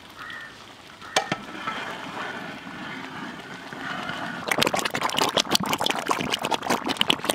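A large iron cauldron of thick apple jam boiling over a wood fire while it is stirred with a long-handled paddle: one sharp knock about a second in, then from about four and a half seconds a dense run of pops and crackles.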